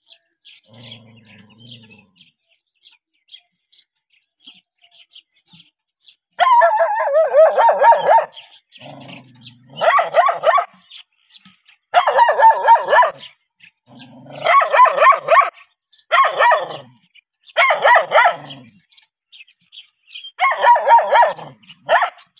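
A young, thin dog barking at a stranger in repeated high-pitched bouts, each about a second long and coming roughly every two seconds, starting about six seconds in.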